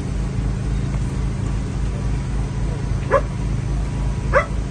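Search-and-rescue dog barking twice, about three seconds in and again just over a second later, over a steady low engine drone.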